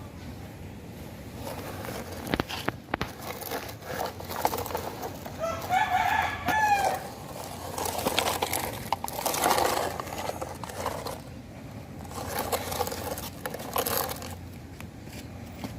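A rooster crows once, about six seconds in, over several stretches of scratchy rustling noise.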